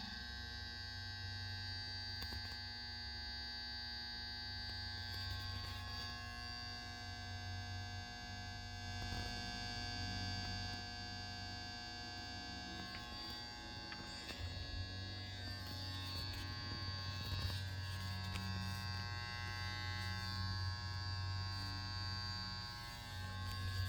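A railroad rail-charger transformer (120 V in, 12 V out) powering a 12-volt LED bulb, giving a steady mains hum and buzz. It sounds like a mercury vapor, high-pressure sodium or metal halide lamp ballast.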